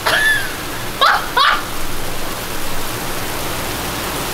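Heavy rain pouring onto a flooded street, a steady hiss. Over it, three short high-pitched whoops from a person: one right at the start and two quick ones about a second in.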